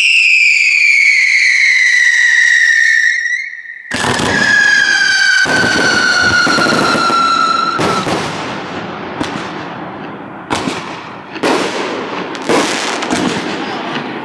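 Fireworks whistling, a long shrill whistle falling in pitch and then a second, lower whistle over a hiss of sparks. From about eight seconds in comes a string of sharp bangs, roughly one a second.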